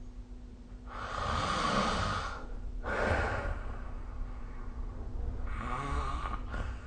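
A sleeping person snoring and breathing heavily: three noisy breaths, the first about a second in and the longest, a shorter one around three seconds, and another near the end.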